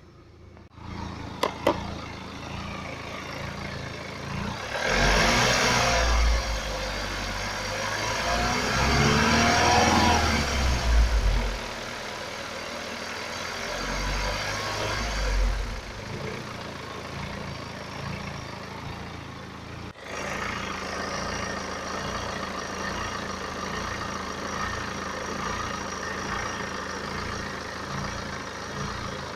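BMW 318d's N47 four-cylinder diesel running warm, with two sharp clicks about a second and a half in. It swells in revs twice, at about 5 to 11 s and again around 15 s, then settles to a steady idle; the owner is listening for timing chain rattle.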